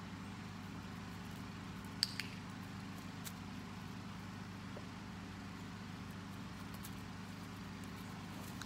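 Steady low mechanical hum, with a few short sharp clicks: a quick double click about two seconds in, a single one a little later, and another double click at the end.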